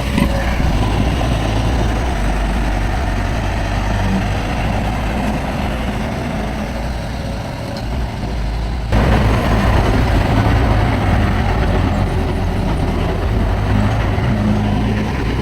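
Heavy diesel earthmoving machinery running with a steady low engine rumble. About nine seconds in the sound jumps abruptly louder.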